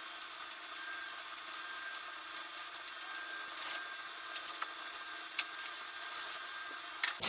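Light clicks and two brief scrapes of hand tools on engine parts, over a steady background hum that cuts off suddenly near the end.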